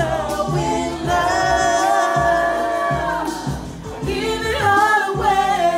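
A song with a sung lead vocal over a pulsing bass beat; the voice holds one long note from about one to three seconds in.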